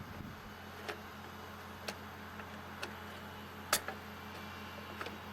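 Light sharp clicks and taps of small metal parts being handled while the burner of an RV absorption fridge is fitted into place, about one a second, the loudest a little before four seconds in, over a steady low hum.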